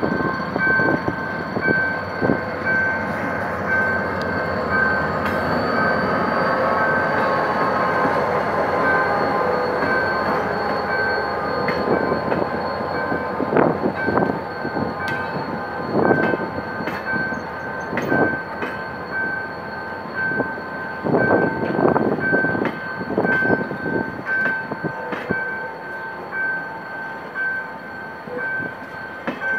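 GM GT22CW-2 diesel-electric locomotive, with its EMD 645 twelve-cylinder two-stroke diesel, rumbling past while hauling passenger coaches; the wheels clack over rail joints, with some squeal. A steady repeating beep, a level-crossing warning signal, sounds throughout.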